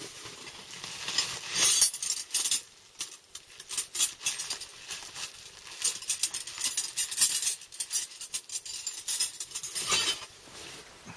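Quick, irregular metallic clinks and rattles of small hand tools being handled and rummaged through, stopping about ten seconds in.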